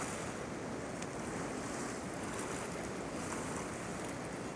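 Steady rushing of river rapids and whitewater, an even noise with no breaks.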